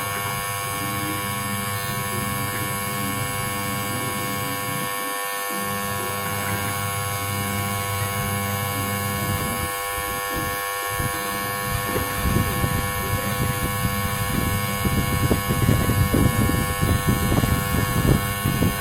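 Haier XQS6078 washing machine running its wash cycle on the retrofitted timer: the wash motor hums steadily, and from a little past the middle an uneven churning rumble grows louder.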